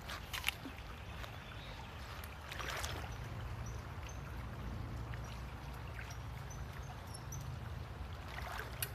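Faint flowing river water with a steady low rumble, a few light knocks near the start and a brief splashy rush about three seconds in. Some faint short high chirps run through it.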